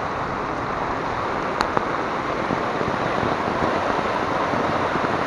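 Heavy rain pouring down with runoff water rushing over a flooded street, a steady hiss. One sharp click about a second and a half in.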